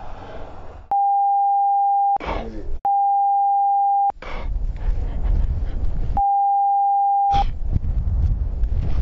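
Three editing bleeps: a steady pure tone, each a little over a second long, laid over the sound track and blanking it out entirely while it lasts. Between the bleeps there is loud, rumbling noise.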